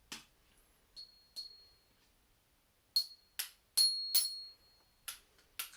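Mini xylophone bars struck about nine times in an uneven, plodding rhythm, each stroke giving a short high ring. The strikes come closer together toward the end.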